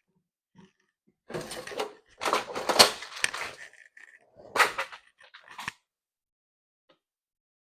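Rummaging on a workbench: small parts and tools clattering and rustling in three bursts.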